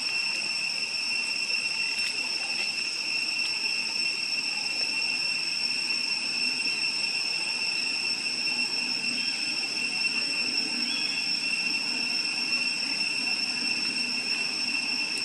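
Steady, high-pitched insect drone, holding one unchanging pitch throughout.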